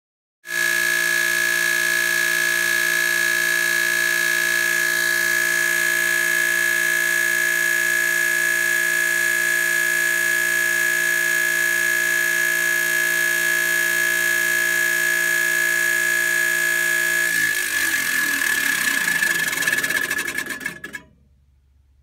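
Draft inducer motor in a gas pack furnace running with a loud, steady, high-pitched whine. About 17 seconds in the sound turns rough and noisy, and it cuts off near the end.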